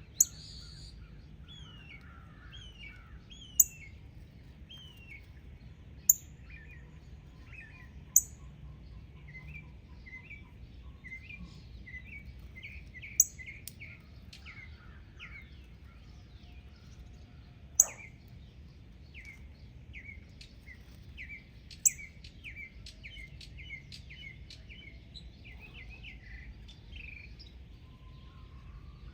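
Birds chirping in quick, short repeated notes, with seven sharp clicks a few seconds apart standing out as the loudest sounds.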